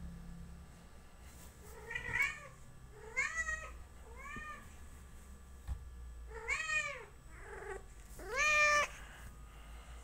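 Siamese-type pointed cat meowing about six times in a row, each meow rising and then falling in pitch. The last one, near the end, is the loudest and longest.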